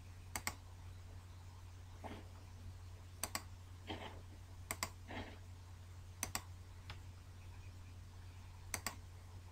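Computer mouse button clicked five times, a second or two apart, each click a quick double snap of press and release, as the installer dialogs are clicked through. A steady low hum runs underneath.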